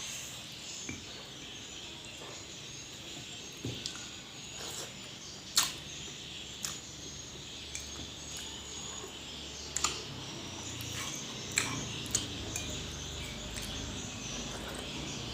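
Mukbang eating sounds: a meal of rice and fish being eaten, with about ten scattered sharp clicks and clinks against dishes. Behind them runs a steady high background chirping of insects.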